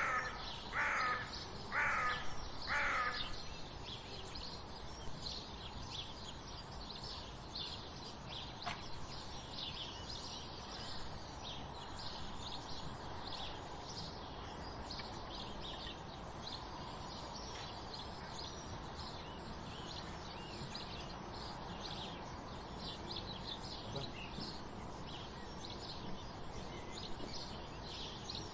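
Morning birdsong: small birds chirping continuously, with four loud harsh caws about a second apart in the first few seconds.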